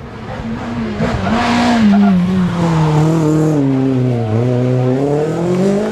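Rally car engine passing on a special stage. It comes off the throttle and its pitch falls steadily for about three seconds as it slows. From a little past the four-second mark the pitch rises again as it accelerates away.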